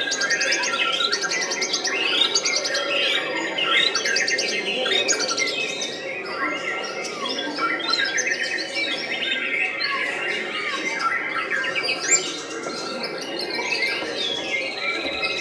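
White-rumped shamas (murai batu) singing in their cages, several songs overlapping: rapid trills, whistled phrases and chatter.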